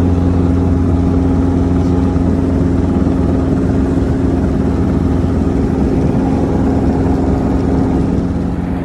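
Steady, loud engine drone of a vehicle, a constant low hum with no change in pitch.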